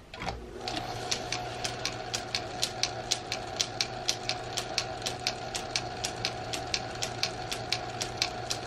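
Small metal lathe switched on about a third of a second in and running steadily, its motor humming and whining, with a regular ticking about four times a second.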